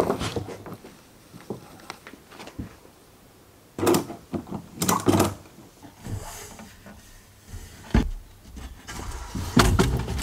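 Kayaking and spearfishing gear being loaded into a hatchback through the open rear hatch: a few separate clunks and knocks as long poles are slid in between the seats, heard from inside the car.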